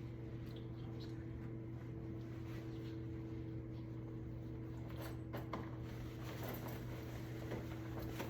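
Steady low electrical hum of room equipment, with a few faint clicks and rustles of things being handled, most of them a little after halfway.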